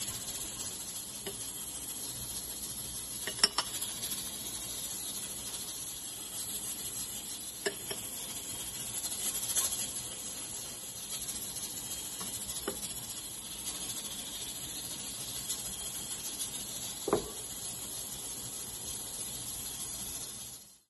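Four light glass-on-glass clinks a few seconds apart as small glass dishes of ground spice touch the rim of a glass mixing bowl while the powder is tipped in, over a steady hiss.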